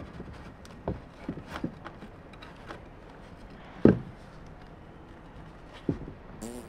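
A few sharp wooden knocks and thumps as a heavy timber beam and wooden blocks are shifted and set down, the loudest thump about four seconds in.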